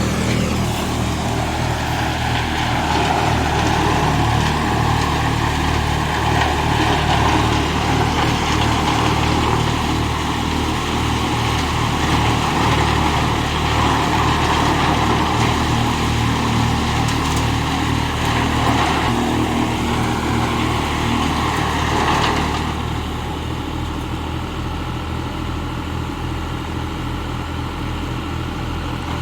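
An engine running steadily, its level dropping slightly about three-quarters of the way through.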